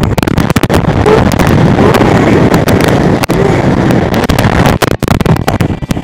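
Strong typhoon wind gusting across a balcony, buffeting the phone's microphone with loud rumbling and a rapid run of pops and crackles.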